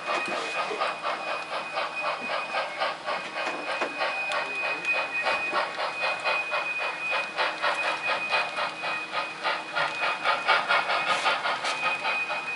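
Sound-equipped model steam locomotive running slowly while switching cars, its chuff beat repeating steadily with a steady high whine running through it.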